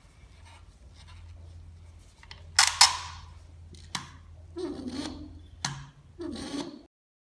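Plastic parts of a laboratory bottle-top dispenser being handled and fitted together during reassembly: a few sharp clicks, the loudest about two and a half seconds in, mixed with short rustling handling noises. The sound stops abruptly just before the end.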